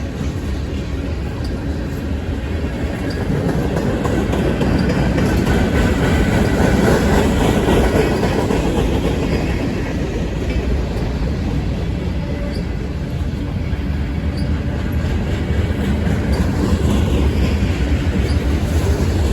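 A CSX manifest freight train rolling past, its cars' wheels making a steady rumble on the rails with faint intermittent clicks. The rumble swells slightly midway and again near the end.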